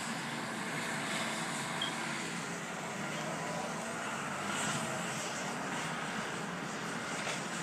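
Excavator engine running steadily at a digging site, a continuous even drone.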